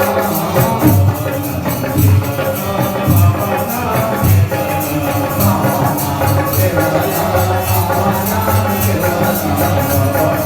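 Music with a steady beat: pulsing bass notes under a melody, with a fast, even shaker rhythm on top.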